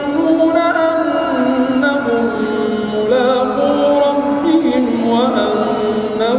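A man reciting the Quran aloud in a drawn-out, melodic chant, holding long notes and sliding between pitches without a break.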